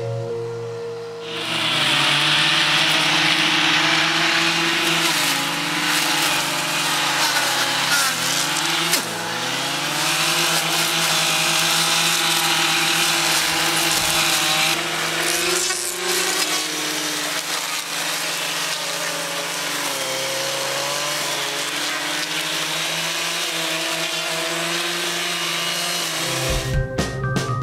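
Motorised power tool running while bramble thickets are cut back, its engine speed rising and falling.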